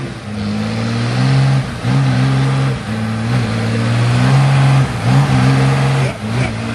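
Straight-piped 12-valve Cummins inline-six diesel in a Blue Bird school bus, revving hard under load as the bus pushes through mud, the revs dipping and climbing back several times; it sounds stuck.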